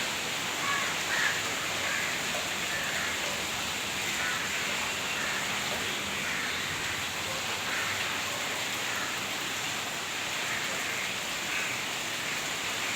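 Steady rain falling and pattering on surfaces, an even unbroken hiss.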